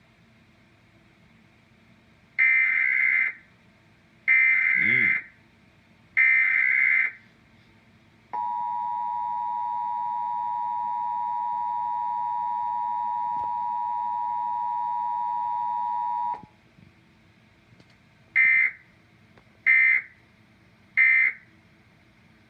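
Emergency Alert System tones: three loud bursts of buzzing digital data (the encoded SAME alert header), then a steady two-tone attention signal held for about eight seconds, then three short data bursts, the end-of-message code that closes the alert.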